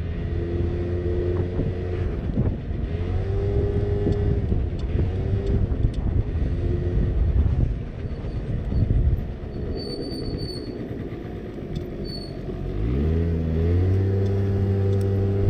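Small 50cc motorbike engine running while riding, with road and wind rumble. About two-thirds of the way through its note climbs as it accelerates, then holds steady at the higher pitch.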